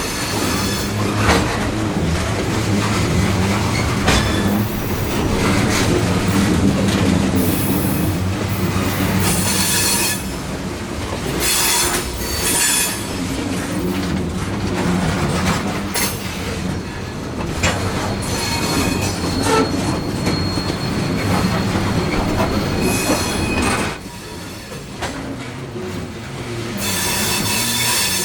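Freight train's coal cars rolling past with a steady rumble and clacking, the wheels squealing against the rails again and again.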